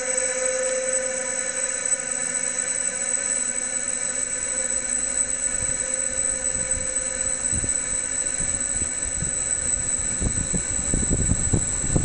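Drying-chamber fan running steadily: an even mechanical hum made of many steady tones, with a high whine on top. From about two-thirds of the way in, gusty rumbling from moving air buffeting the microphone joins it.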